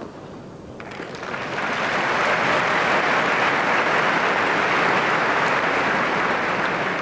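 A single sharp knock, then a tennis crowd applauding, building about a second in and holding strong for several seconds before easing slightly near the end.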